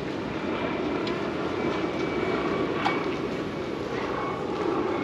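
Steady low roar of outdoor city background noise, with a single sharp click about three seconds in.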